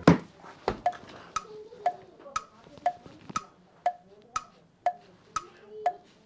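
Steady ticking like a clock, about two ticks a second, each tick short and sharp with a brief ring. A single louder knock opens it.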